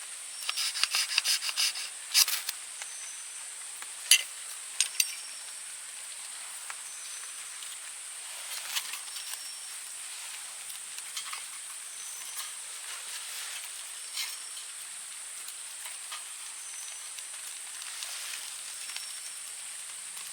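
Forest insects droning steadily on one high pitch, with short faint chirps every couple of seconds. A quick run of clicks and knocks comes in the first two seconds, and a few single sharp knocks follow around four and five seconds in.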